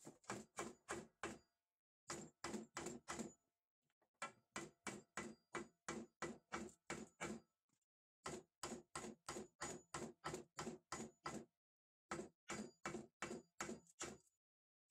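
Repeated knocking on a wooden board, about three knocks a second in runs of four to nine, with short pauses between runs.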